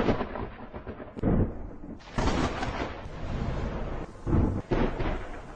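Thunder sound effect: a continuous rumble with several louder crashes.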